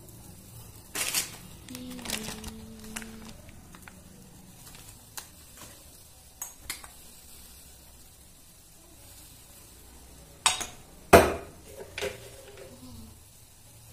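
Noodles boiling in water in a steel pot on a gas burner, with scattered clicks and a few sharp knocks, the loudest about ten and eleven seconds in.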